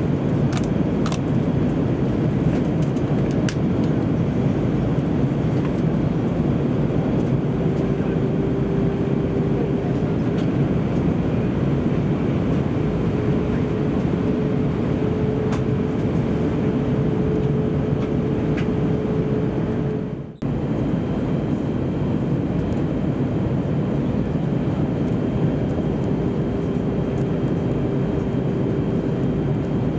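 Steady in-flight cabin noise of an Airbus A319-131 with IAE V2500 engines: an even, low rush of engines and airflow, with a faint steady hum that comes and goes. The sound cuts out for a split second about two-thirds of the way through.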